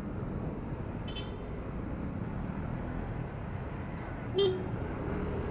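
Steady riding noise from a Yamaha Aerox 155 scooter under way, its single-cylinder engine mixed with wind and road noise. A short vehicle horn beep sounds about four seconds in.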